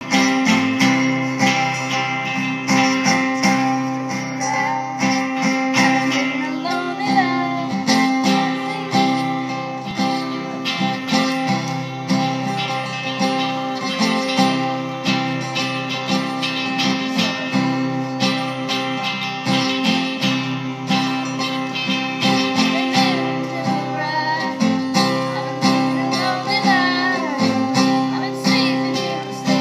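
Two guitars, an acoustic and an electric, strummed in a steady rhythm while a young girl sings along into a microphone, her voice coming in at moments over the chords.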